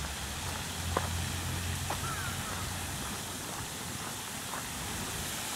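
Footsteps on a dirt park path, a few soft irregular steps, over a steady outdoor hiss, with a faint low hum in the first half.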